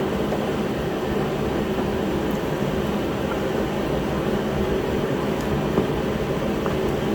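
Shop heater running with a steady even noise and a low hum, and a single light click about six seconds in.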